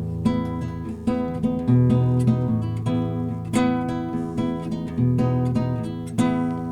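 Acoustic guitar (violão) strumming a rhythmic chord pattern, each sharp strum ringing on into the next: the instrumental intro of a song, before the vocals come in.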